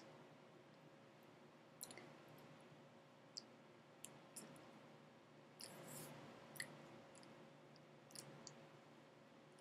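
Near silence: room tone with a faint steady hum and a scattering of faint short clicks and ticks.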